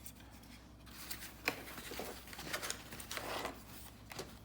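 Small plastic alarm parts and their packaging being handled: a few light clicks and rustles, the sharpest click about a second and a half in.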